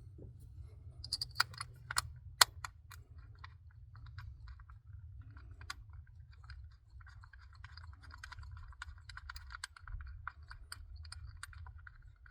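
Hand-work sounds in the engine bay: several sharp clicks and knocks in the first few seconds, then a long run of quick small clicks, over a steady low hum.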